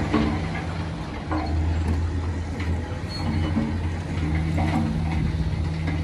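Heavy diesel machinery running with a steady low drone, punctuated by short squeaks and knocks every second or so.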